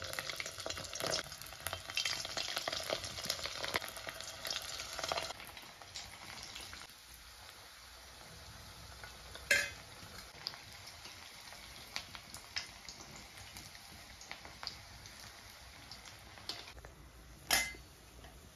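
Shewali (night-flowering jasmine) flower fritters in rice-flour batter frying in hot oil in a kadai. The oil crackles loudly for the first five seconds or so as the batter pieces go in, then settles to a quieter steady sizzle. A metal spoon knocks sharply against the pan twice, about halfway and near the end.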